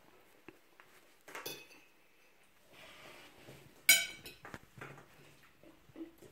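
Metal forks clinking and scraping on ceramic plates of pasta, in scattered knocks; one sharp ringing clink just before four seconds in is the loudest.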